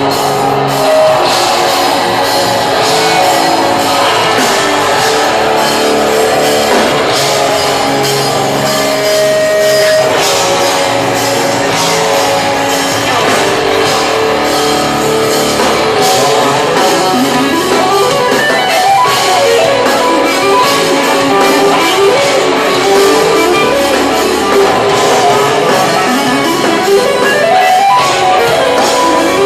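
Instrumental progressive metal played live on eight-string electric guitars with a drum kit, loud and continuous, with fast guitar lines rising and falling in pitch in the second half.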